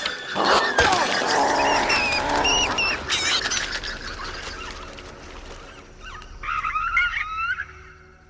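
Film sound effect of Compsognathus (compy) dinosaurs calling: a flurry of high, bird-like chirps and squeaks mixed with sharp clicks, fading after about three and a half seconds, then a short burst of chirps near the end.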